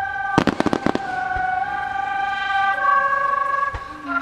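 A quick cluster of aerial firework shell bursts, several sharp bangs within half a second, starting about half a second in, with one more bang near the end. Music holding long melody notes plays throughout.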